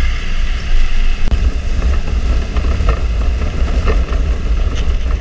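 Harley-Davidson Street Glide Special's V-twin engine running steadily at road speed, mixed with heavy wind rush on the camera microphone.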